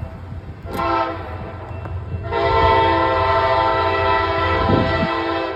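A train's air horn sounds a short blast, then a longer, louder blast starting a little after two seconds in, over the steady low rumble of the train.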